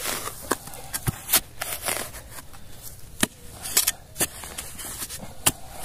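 Irregular sharp clicks and scrapes of digging and handling soil holding small hard fragments of broken crockery and roof tile.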